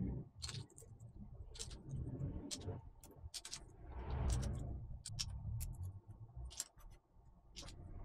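Faint, irregular clicks and clatter of plastic keycaps being picked up and handled as their rubber O-rings are pried off the stems with a small metal pick, with soft rubbing and handling noise.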